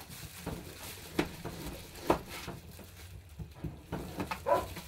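Kitchen knife slicing raw liver on a plastic cutting board, the blade tapping the board a few times, roughly once a second.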